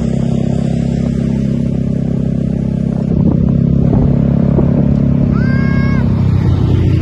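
Heavy bus diesel engine running with a steady low drone, getting somewhat louder about three seconds in. About five and a half seconds in, one short note of the bus's multi-tone telolet horn sounds, rising briefly in pitch and then holding for about half a second.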